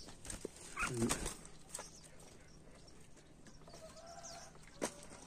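A few short, faint animal calls: one about a second in and a softer one around four seconds. A sharp click comes near the end.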